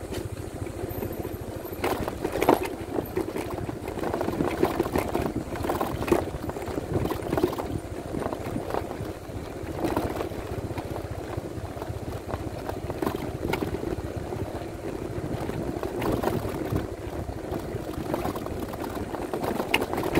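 Yamaha NMax 155 scooter's single-cylinder engine running as it climbs a rough dirt road, with irregular knocks and rattles from the bumps.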